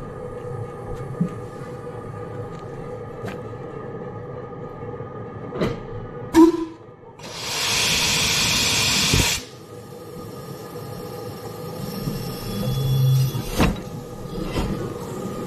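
15-inch-gauge steam locomotive River Mite standing with a steady low hum and a couple of sharp knocks. About seven seconds in, steam hisses loudly for about two seconds and then cuts off sharply.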